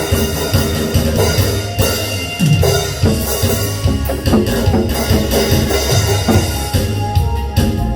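Loud instrumental music with a steady drum-kit beat and percussion.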